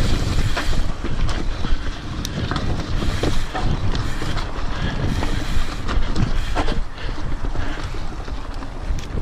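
Mountain bike riding fast down a rough dirt trail: wind buffets the handlebar-mounted camera's microphone over a steady low rumble of the tyres. Scattered clicks and knocks come through as the bike rattles over the bumps.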